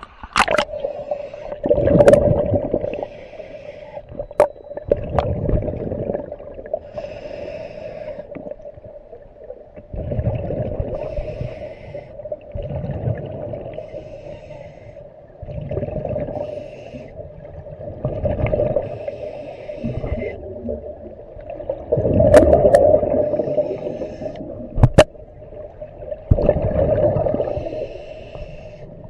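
Scuba diver breathing through a regulator underwater: a hiss on each inhale and a gurgle of exhaled bubbles, repeating every few seconds. A steady hum runs underneath, with a few sharp clicks.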